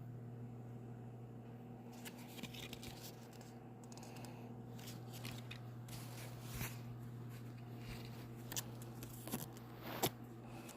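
Faint handling noise, with light rustling, scrapes and a few sharp clicks, the loudest near the end, over a steady low electrical hum.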